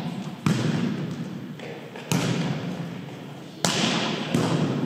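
Volleyball being struck back and forth in a rally: four sharp slaps of the ball, each ringing on in the echo of a large gym.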